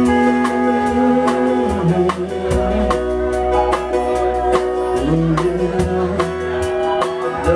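Live rock band playing an instrumental passage: the drum kit keeps a steady beat with cymbal hits under held guitar and bass chords, which change twice.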